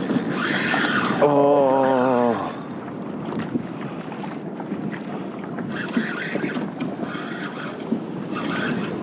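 Wind buffeting the microphone and choppy sea water washing around a sit-on-top kayak. A brief held, wavering tone a little over a second in lasts about a second.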